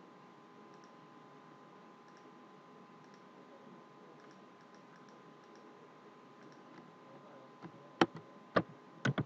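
Faint steady background hum, then a few sharp computer mouse clicks near the end, the last two close together.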